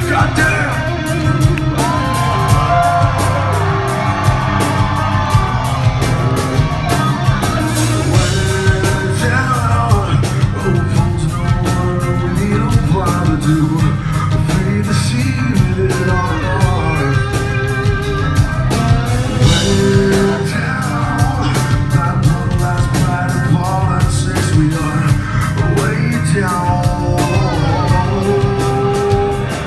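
A rock band playing live: electric guitar, bass guitar and drum kit with a steady run of drum and cymbal hits, and a singer's voice over them.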